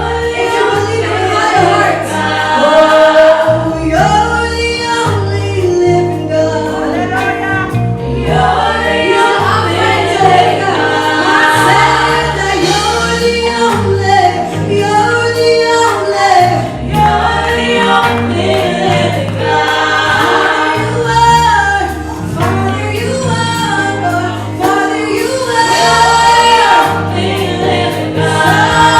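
Gospel choir singing together over a band, with a bass line stepping underneath.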